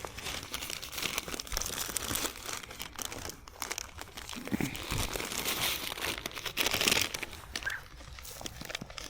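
Food wrapper crinkling and rustling close to the microphone as a sausage roll is handled and eaten, with a dense, irregular crackle.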